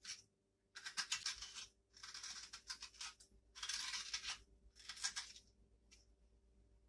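Metal dessert spoon scraping the flesh out of a peeled potato half, in a series of short, faint scraping strokes about a second apart.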